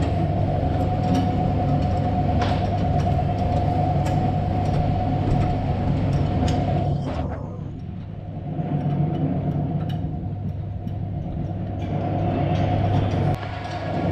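Automotive AC recharge machine running with a steady mechanical hum during the R134a gas recharge. The hum sags about halfway through and then picks up again, with a few light clicks.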